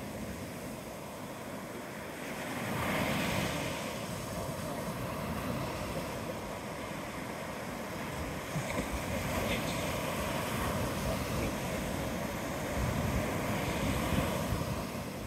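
Surf breaking and washing up the beach in a steady hiss, swelling louder about three seconds in and again near the end as waves come in, with wind rumbling on the microphone.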